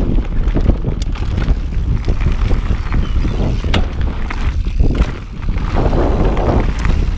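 Mountain bike rolling fast down a dirt singletrack: a steady low rumble of wind buffeting the camera microphone, with tyre noise on loose dirt and rocks and frequent sharp clicks and rattles from the bike.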